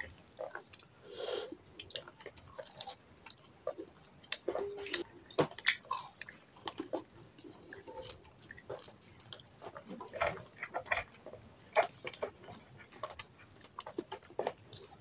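Chewing and crunching of fried samosas, with scattered irregular crackles as the crisp pastry is broken apart by hand.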